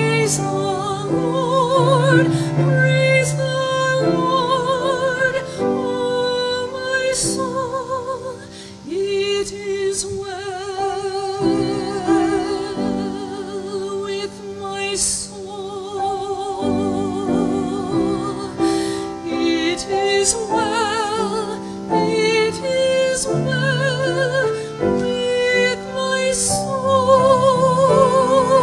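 A woman sings a slow solo with wide vibrato, accompanying herself on a grand piano.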